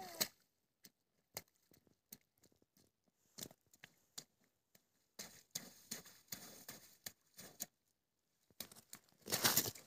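Footsteps of a small child's rubber boots splashing and crunching through slushy meltwater. First come scattered single steps, then denser splashing from about halfway, loudest near the end. A brief high call falls in pitch right at the start.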